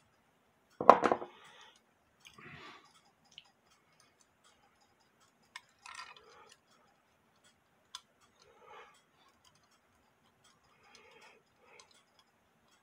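Brass clock movement parts of a 1910 Waterbury ship's bell clock being handled during disassembly: one sharp knock about a second in, then scattered light metallic clicks and clinks as the plate, pillars and knurled nuts are worked by hand.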